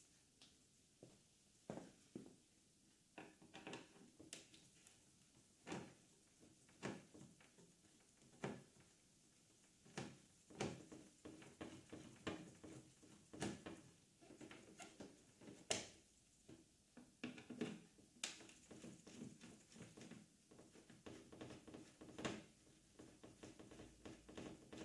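Faint, irregular light clicks and knocks from gloved hands and a hand tool working the fasteners and plastic tail fairing of a 2001 Yamaha R1.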